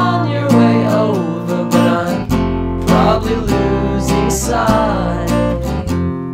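Music: a song with strummed acoustic guitar and a gliding melodic line.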